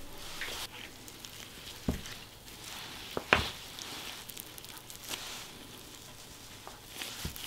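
Handling noises as a wet plaster bandage is wrapped and smoothed around a dog's foreleg: soft rustling and crackling, with a few short knocks, the loudest about three seconds in.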